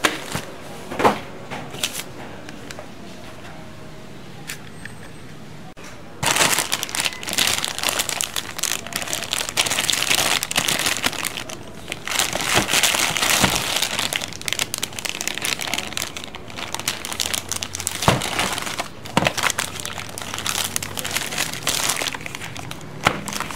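Clear plastic bags crinkling as the bagged plastic toy pieces are handled, with scattered clicks and knocks of hard plastic. Quieter for a few seconds near the start, then steady handling noise.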